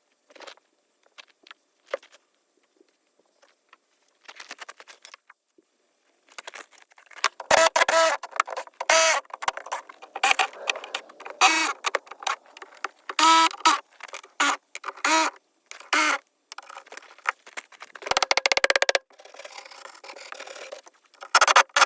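Faint scattered clicks, then, from about six seconds in, runs of loud, high-pitched squeaks in quick succession with short pauses between them.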